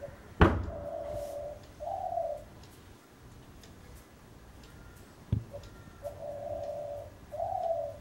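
A dove cooing twice, each time a longer steady coo followed by a shorter falling one. A loud sharp knock sounds just after the start, and a softer one a little past the five-second mark.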